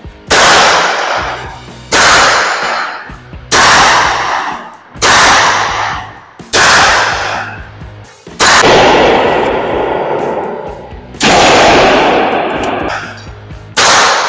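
Eight shots fired one at a time from a Taurus RT 941 revolver chambered in .22 Magnum, each a sharp crack followed by about a second of echo. The first six come roughly a second and a half apart; the last two follow after longer pauses.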